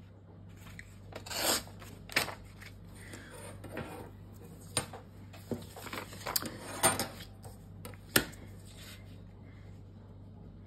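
Sheet of printer paper being torn by hand along a steel ruler for a rough, rustic edge, with paper rustling and crinkling in a series of short tears and handling noises. There is a sharp knock about eight seconds in, like the metal ruler set down on the wooden desk.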